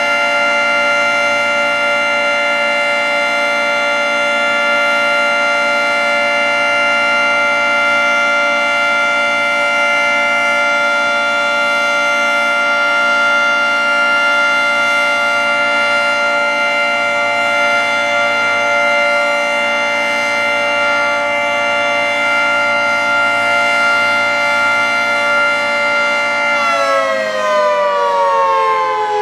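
Federal Signal 3T22 three-tone outdoor warning siren sounding a loud, steady chord on its Alert signal. Near the end the chord begins to wind down, all the tones falling in pitch together as the siren shuts off.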